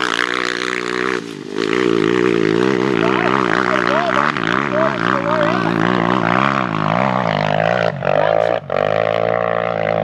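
Single-cylinder four-stroke engine of a Honda XR400R dirt bike, bored out to 435 cc, running hard at high revs while climbing a steep hill. Its pitch wavers up and down steadily, with a brief drop about a second in.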